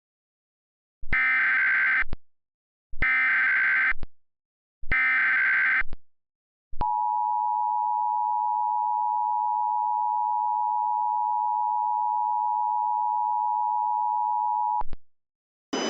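Emergency Alert System tones for a severe thunderstorm warning: three one-second bursts of SAME header data tones, about a second apart, then a steady two-tone attention signal held for about eight seconds. Together they signal the start of an emergency alert.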